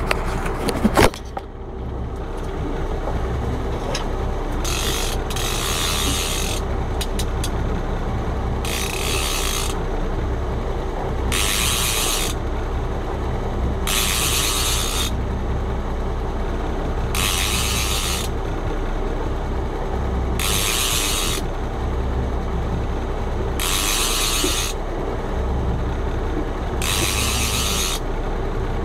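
Fishing reel being wound in short bursts of about a second, repeating roughly every three seconds, over a steady low hum. Knocks from handling in the first second or so.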